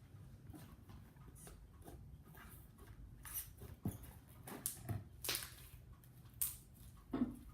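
Slime being stretched and pressed by hand, giving a string of short, irregular squelches and little pops, starting about three seconds in, the loudest just before the end.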